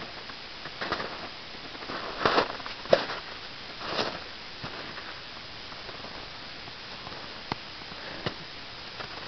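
Footsteps crunching in snow, irregular steps, with a sharp knock about three seconds in.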